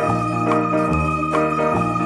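Background music: a steady electronic-organ tune, its bass note changing a little less than once a second.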